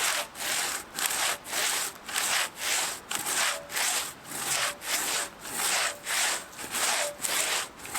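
Hand saw cutting into the trunk of a large spruce tree, pushed and pulled in steady strokes of about two a second, each stroke a rasping hiss.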